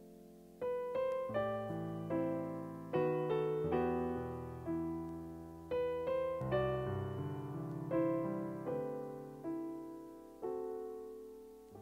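Piano playing slowly, single notes and chords struck and left to fade, after a brief lull near the start.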